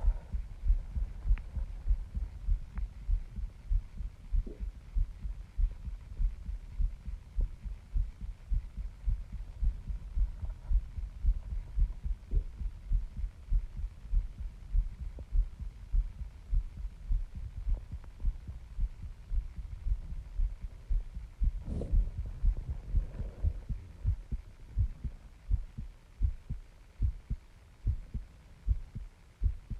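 A human heartbeat: low thumps in a steady lub-dub rhythm, with one brief knock about two-thirds of the way through.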